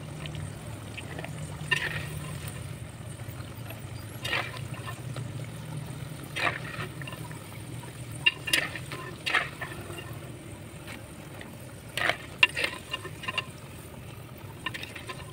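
Spinach pakoras deep-frying in hot oil in a terracotta pot: steady sizzling and bubbling, with sharp clicks every second or two.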